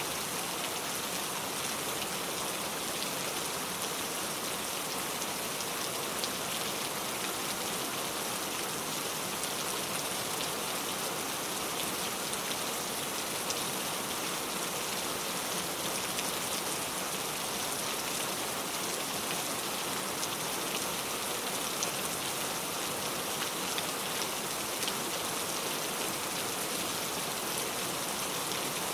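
Steady rain falling: an even hiss of rain on surfaces, with many small individual drop ticks and no change in intensity.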